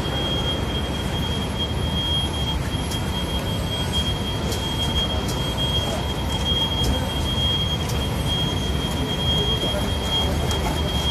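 Steady low rumble of aircraft maintenance hangar noise with a continuous high-pitched whine over it and a few faint clicks.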